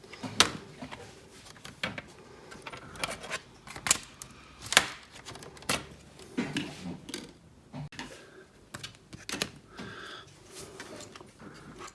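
Irregular sharp plastic clicks and light knocks from handling a laptop's plastic case while its clip-held cover is worked loose.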